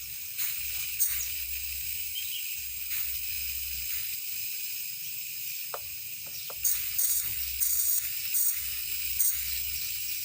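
Tasco SP2000 thermal fogger hissing during a start attempt: a steady high hiss with several short, louder spurts of hiss, bunched in the second half.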